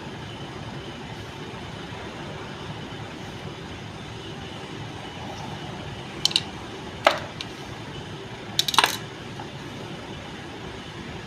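A few sharp metallic clinks of metal parts in the second half, the last ones close together, over a steady background noise.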